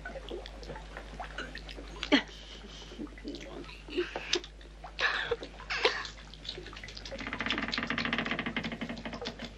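Messy eating sounds: wet slurping, smacking and munching in irregular short bursts, with a faster run of them near the end.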